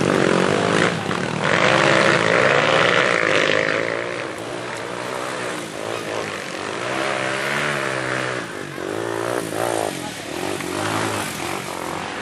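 Enduro dirt-bike engines revving up and down repeatedly as the bikes ride through a shallow creek crossing, with water splashing. Loudest over the first four seconds.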